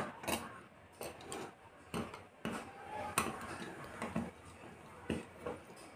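Irregular small clicks and taps of plastic modular electrical switches being handled, and a screwdriver turning a switch terminal screw to clamp a copper wire.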